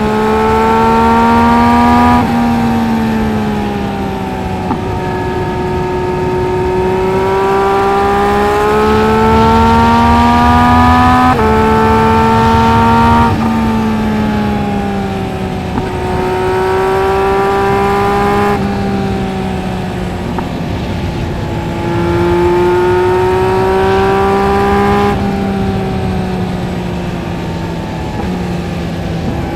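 Yamaha MT-09 SP's 890 cc three-cylinder engine running through a LeoVince LV Race exhaust while riding. The revs climb and ease off, with the pitch dropping sharply at gear changes about six times.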